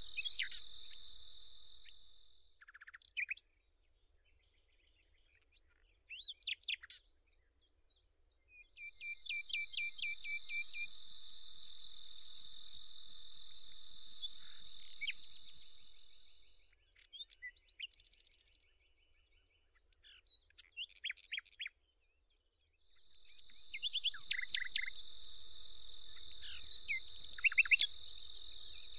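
Insects stridulating in a steady, fast-pulsed trill, with short bird chirps in between. The insect trill cuts out twice for a few seconds.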